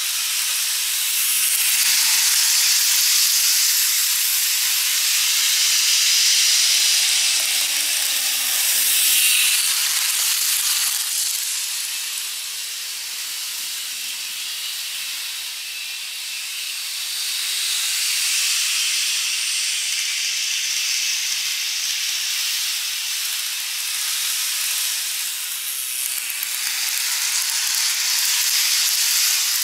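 N-scale model train running on TOMIX plastic track: a steady high whirring hiss of wheels and motor that swells and fades as the train circles the layout, loudest near the end as it passes close over the bridge.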